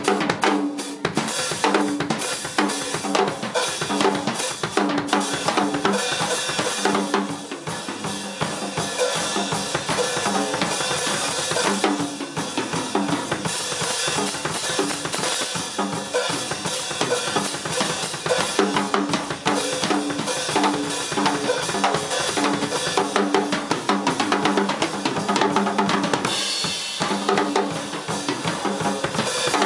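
Drum kit solo: fast, dense strokes moving around the toms, snare and bass drum, with cymbals washing in brighter near the end.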